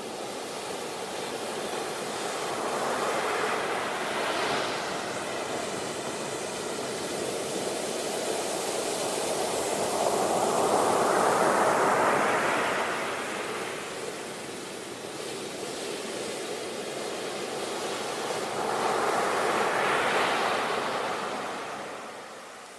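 Sea waves breaking and washing in: three waves swell and ebb roughly eight seconds apart, over a steady rushing hiss of surf.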